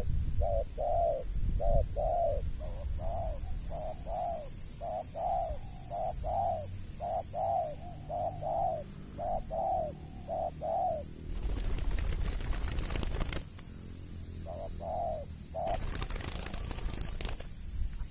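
Spotted dove cooing: a long run of short, low coo notes at about two a second, stopping about 11 seconds in, then a few more notes a few seconds later. A steady high-pitched whine runs underneath, and there are two stretches of rustling noise near the end.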